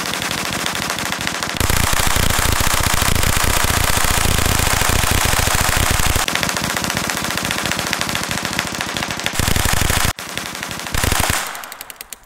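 Tippmann Ordnance .22LR hand-cranked Gatling gun firing a long, rapid, continuous string of rimfire shots. The loudness of the stream shifts a few times, and near the end the shots slow to a last few and stop.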